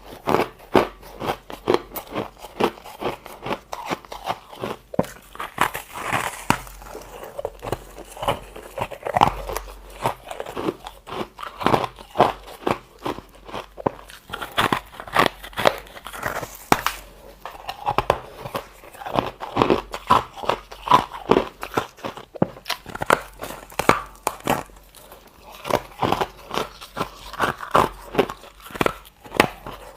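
Close-up crunching of a person biting into crunchy white freezer-frost ice bits: many sharp, irregular crunches in quick succession, several a second.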